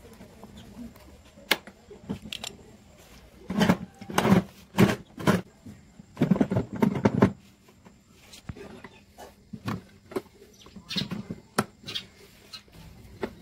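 Clicks and clattering knocks from a homemade tool box's metal hasp latches and hinged lid halves as they are worked by hand. The knocks come singly at first, then in two louder clusters in the middle, and a few more near the end.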